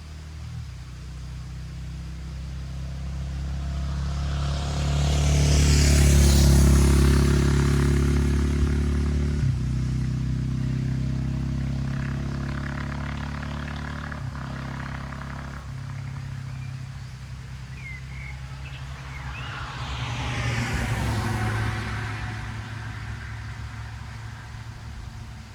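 KTM 690 SMC-R single-cylinder supermoto with a LeoVince Nero slip-on exhaust riding past, loudest about six seconds in, its pitch dropping as it goes by, then upshifting several times as it pulls away. A second, quieter pass-by rises and fades around twenty seconds in.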